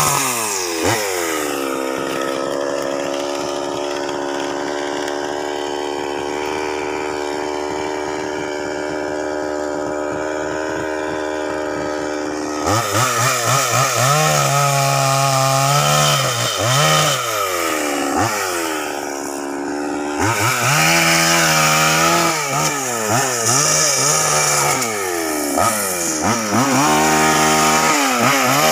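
Two-stroke chainsaw running at a steady high speed for about twelve seconds. Then its throttle is opened and released over and over, the engine pitch rising and falling about once a second.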